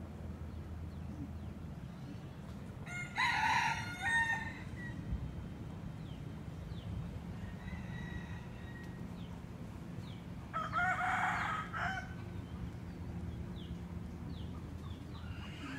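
A rooster crowing twice, once about three seconds in and again about ten and a half seconds in, each crow lasting about a second and a half, over a steady low background hum.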